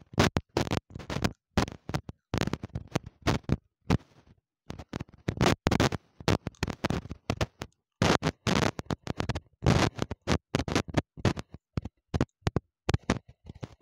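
Close-up biting and chewing of a piece of baked terracotta clay pot: a rapid, irregular run of hard, gritty crunches, pausing briefly a few times.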